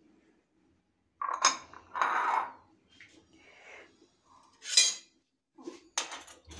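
Glass bowls and a steel spoon being handled on a marble countertop: a series of knocks and clinks, the sharpest about five seconds in, with several quick clicks near the end.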